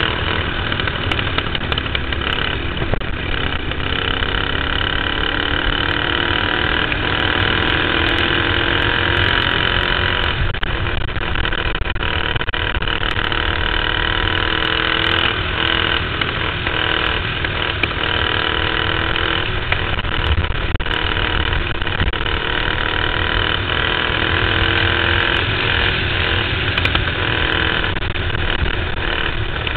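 Caged dirt-track racing kart's engine running at racing speed, heard from onboard, its pitch rising and falling lap after lap as the throttle is opened on the straights and eased through the corners.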